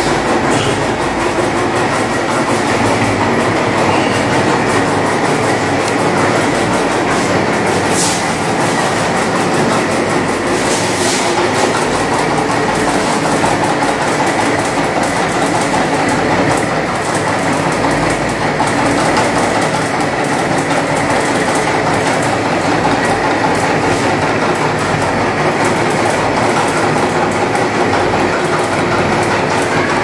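Stirling engine running inside a gas heater's enclosure: a loud, steady mechanical clatter with a faint steady whine over it.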